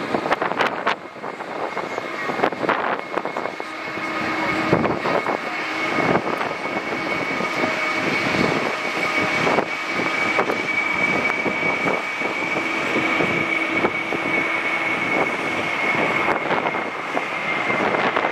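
Boeing 747-400 jet engines at takeoff thrust on the takeoff roll: a steady rumble with a high fan whine, growing louder over the first few seconds and then holding.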